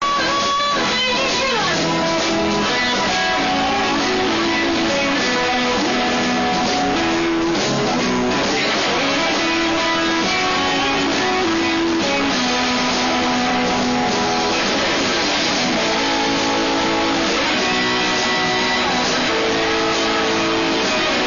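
Live blues band playing a Texas shuffle: electric guitar lines over a second guitar, bass and drums.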